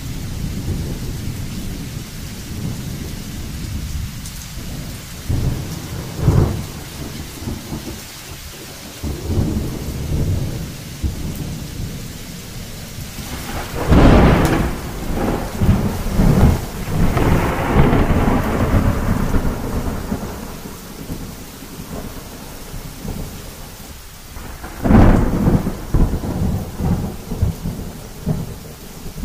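Thunderstorm with steady rain and rolling thunder. A loud thunderclap about halfway through rumbles on for several seconds, another sharp clap comes near the end, and a smaller one about six seconds in.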